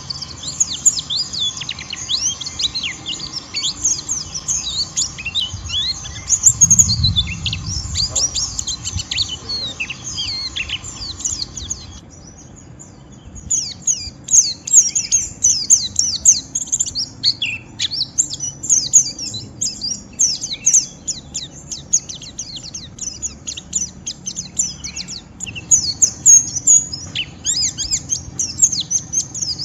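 A white-eye (pleci) giving its harsh, rapid 'ngeriwik' twitter, a dense stream of high, quick down-sweeping notes. There is a short low thump about seven seconds in, and a brief lull just after twelve seconds where the background hiss drops.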